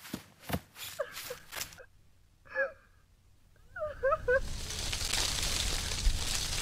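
A man's running footsteps on a dirt path, about two and a half steps a second, stopping about two seconds in, followed by short out-of-breath gasps. From about four seconds a steady rushing hiss takes over.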